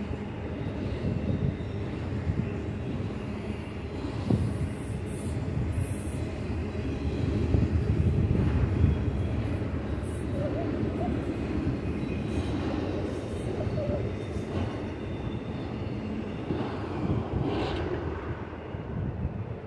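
Freight train of double-stack intermodal well cars rolling past: a steady rumble of steel wheels on rail, with a sharp clank about four seconds in and a few faint brief squeals later on.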